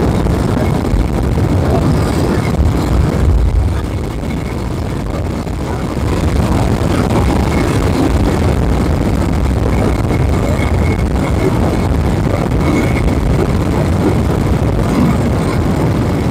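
Moto Guzzi Eldorado's big-bore V-twin running on the move, under heavy wind rush on the microphone. The noise drops for a couple of seconds about four seconds in, then picks up again.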